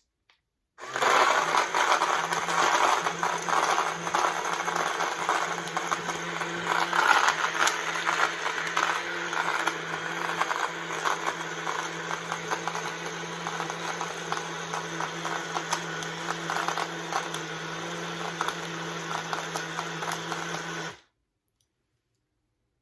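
BlendJet 2 portable blender running for about twenty seconds, crushing ice in a milkshake: a steady motor hum under a rough rattle of ice hitting the blades, harsher in the first half and smoother as the ice breaks down, then cutting off suddenly at the end of its blend cycle.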